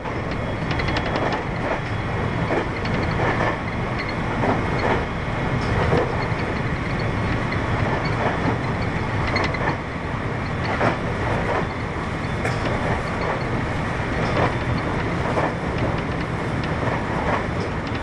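Interior running noise of a JR West 521 series 0 electric train between stations: a steady rumble of wheels on rails with scattered clicks from the track.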